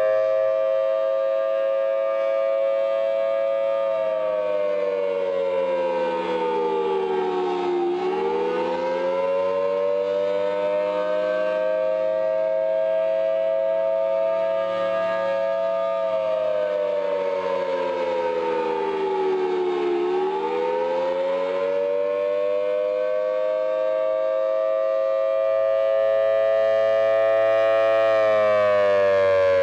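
Mechanical outdoor civil-defense warning siren sounding a wail, with two close tones sounding together. The pitch holds steady for several seconds, then winds down and back up, twice, and starts to fall again at the end.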